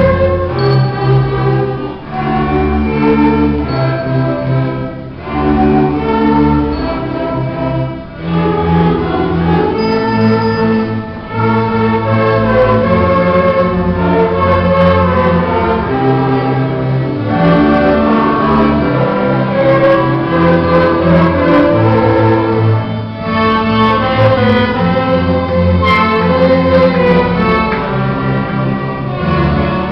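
String orchestra playing a carnavalito, violins carrying the tune over cellos, with notes changing about every second.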